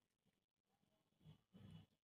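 Near silence, with two faint, soft low sounds shortly after a second in.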